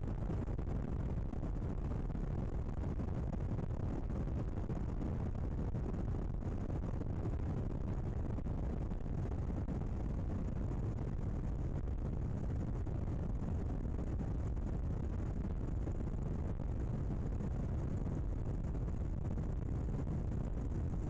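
Steady, unchanging low rumble of an aircraft in flight.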